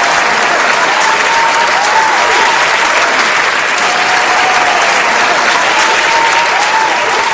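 Large audience applauding steadily, with a faint tone gliding up and down through the clapping a few times.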